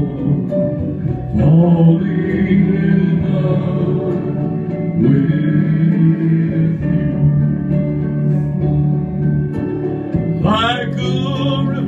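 A man singing a slow love song into a microphone with guitar accompaniment, ending on a held note with a wide vibrato near the end.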